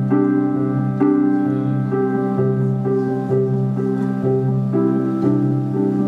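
Live keyboard music: a slow, repeating pattern of chords struck about every half second over a held low bass note.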